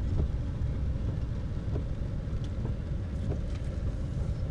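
Steady low rumble of a car driving, heard from inside the cabin, with a few faint ticks scattered through it.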